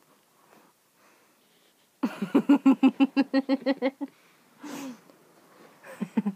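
A child's voice in a fast string of short staccato vocal pulses, about eight a second for two seconds, like a rapid trilled giggle or silly noise, followed by two brief vocal sounds.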